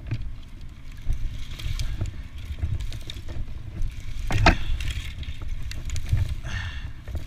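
Wind rumbling on a head-mounted microphone while a climber's hands rustle through bare elm twigs and branches, with scattered clicks and one sharp click about four and a half seconds in.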